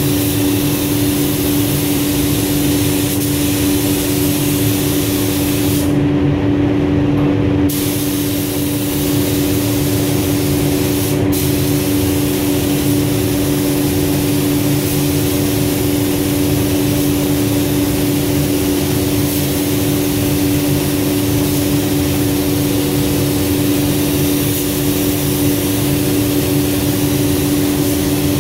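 Gravity-feed compressed-air paint spray gun hissing as it sprays clear coat, over a steady mechanical hum. The hiss cuts out for nearly two seconds about six seconds in, and for a moment near eleven seconds, as the trigger is let off.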